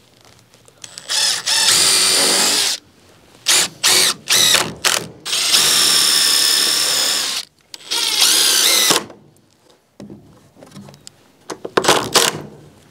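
Cordless Makita impact driver driving screws into wood framing: runs of about a second and a half to two seconds with short bursts in between as screws are seated, and a few brief bursts near the end.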